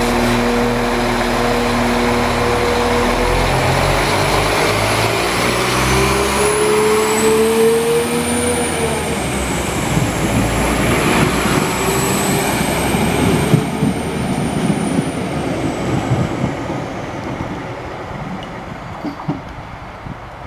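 Diesel multiple unit pulling away from the platform. Its engine note rises as it accelerates, with a high whine that climbs and falls, and there is a single knock about two-thirds of the way through. The sound fades away as the train leaves.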